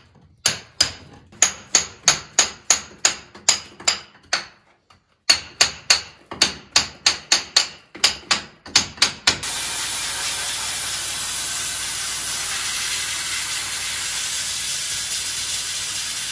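Rapid hammer blows, about four or five a second with a short break, followed by the steady loud hiss of a sandblaster that cuts off abruptly near the end.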